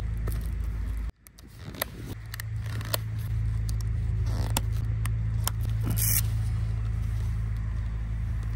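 Plastic ski boot buckles being clipped and ratcheted shut, a handful of sharp clicks with a short scraping snap near the end, over a steady low hum.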